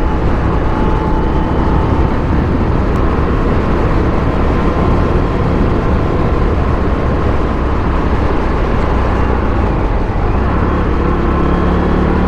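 Indian FTR 1200's V-twin engine running steadily as the motorcycle is ridden, under a dense rush of wind and road noise, with the engine pitch shifting slightly near the end.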